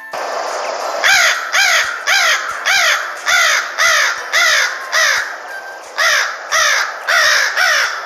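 Crow cawing: a rapid run of harsh, evenly spaced caws, about two a second, starting about a second in, over a steady background hiss.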